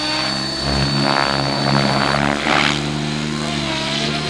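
450-size RC scale Cobra helicopter's motor and rotor running with a steady, even whine.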